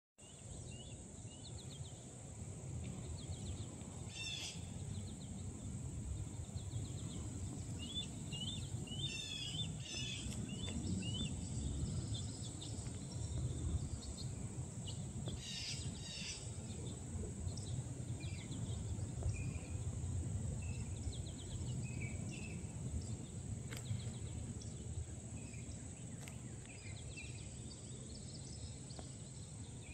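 Outdoor ambience: scattered bird chirps and short trilled calls come and go over a steady high insect drone and a low rumble like wind or distant traffic.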